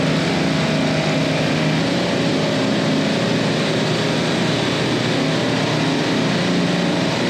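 Steady machinery drone of refrigeration compressors running on a parallel rack, with a constant low hum underneath.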